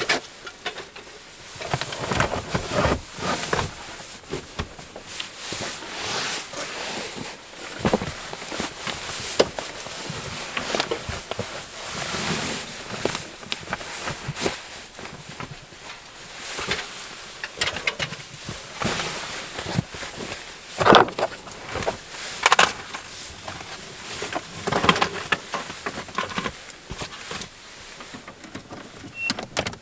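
Irregular rustling, clicks and knocks of objects being handled, with a few sharper knocks a little past the middle.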